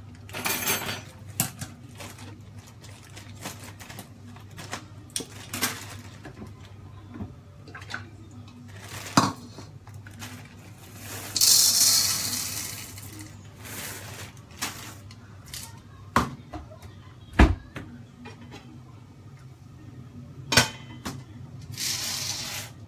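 Kitchen handling sounds: scattered knocks and clinks of dishes and utensils, with one sharp knock near the middle, and the rustle of a plastic bag. About halfway through comes a loud, brief rattle of dry macaroni pouring from the bag into a bowl. A steady low hum runs underneath.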